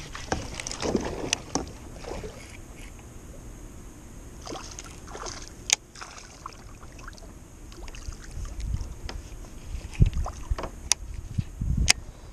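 Handling noises aboard a plastic fishing kayak as a bass is reeled in to the side of the boat: rod-and-reel clicks and light knocks against the hull. There are a few sharp clicks, and heavier low knocks come near the end as the fish comes alongside.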